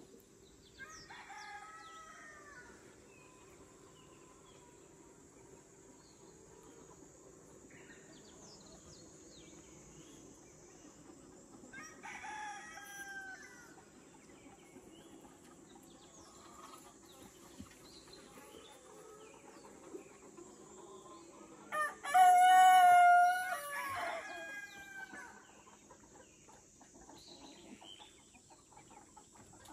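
Roosters crowing several times: one crow about a second in, another about twelve seconds in, and a much louder, closer crow about three-quarters of the way through.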